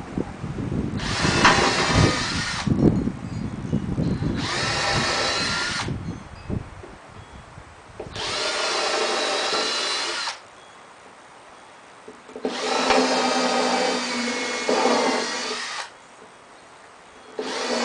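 Cordless drill boring holes in wood: the motor whines in four separate runs of a few seconds each, with pauses between, and a fifth run starts at the end. Low knocks of handling sound in the first few seconds.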